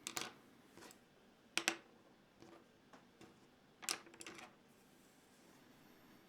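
Small plastic and metal keyboard stabilizer parts (TX "AP" stabilizers) clicking and clattering as they are handled and snapped together. A few irregular sharp clicks, the loudest about a second and a half in and near four seconds.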